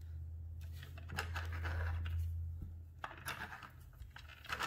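Hands handling the thread and plastic body of a mini sewing machine: scratchy rustles and light clicks, over a steady low hum that fades out about three seconds in.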